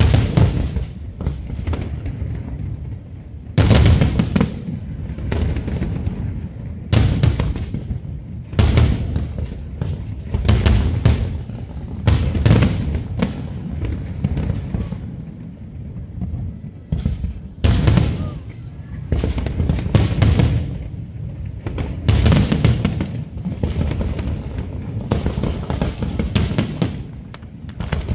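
Fireworks display: aerial shells bursting one after another, a run of sharp booms at irregular spacing, several in quick clusters.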